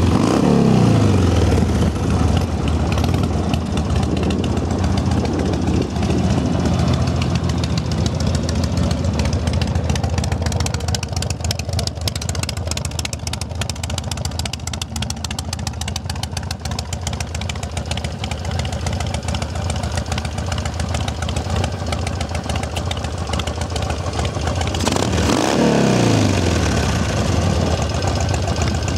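2006 Harley-Davidson Sportster 1200 Custom's carbureted 1200cc air-cooled V-twin running through straight pipes. The revs drop from a high rev at the start and it idles steadily, then a throttle blip near the end sends the revs up and back down.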